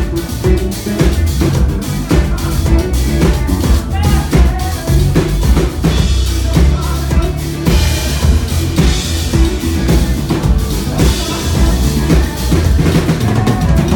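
Live band playing a pop song, with a drum kit driving the beat on bass drum and snare under electric bass and keyboard; the drumming gets busier and brighter about eight seconds in.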